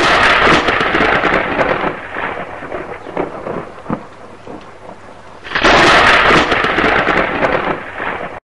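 Loud rushing noise with a low rumble that eases off in the middle and swells up sharply again about five and a half seconds in.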